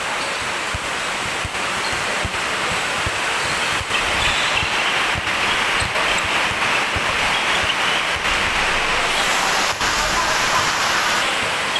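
Steady hiss of heavy rain on the roof over the court, louder from about four seconds in, with basketball dribbles thudding faintly beneath it.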